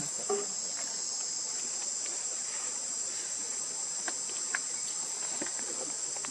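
Steady, high-pitched chorus of insects shrilling without a break, with a few faint brief ticks.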